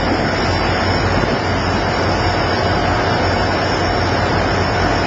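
Steady noise at sea: a loud, even rush of wind and water over a constant low engine hum, with a faint steady whine above it.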